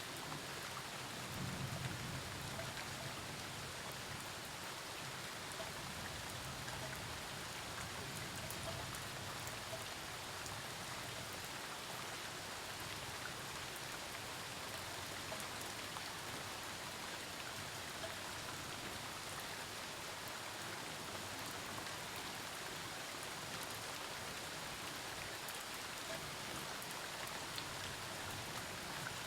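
Steady rain falling during a storm, an even hiss with scattered drop ticks and a faint low rumble in the first few seconds.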